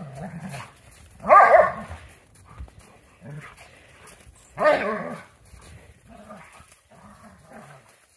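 Two doodle dogs play-fighting, with low growls on and off throughout and two loud barks, one about a second in and one near the middle.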